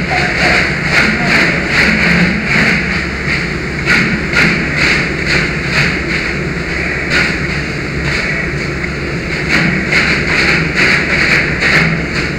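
Fire engine running steadily in a continuous low drone, with short hissing bursts repeating over it.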